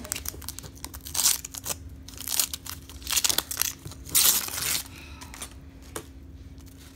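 Paper wrapper of a Donruss baseball card pack being torn open and crumpled by hand. It comes in several short crinkling bursts that die down about five seconds in.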